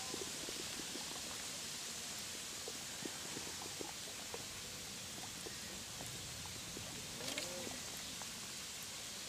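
Outdoor ambience at a reed-fringed pond: a steady hiss with scattered faint ticks, and a short wavering call about seven seconds in.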